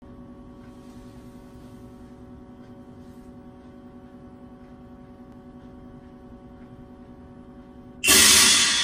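Steady electrical hum with a few faint steady tones for about eight seconds. Near the end the song's music starts abruptly with a loud percussion crash that rings and fades.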